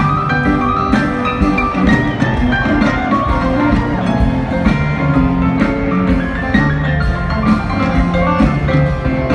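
Live rock band playing on stage, with drums, electric guitars and keyboard, picked up from the audience seats in a large arena.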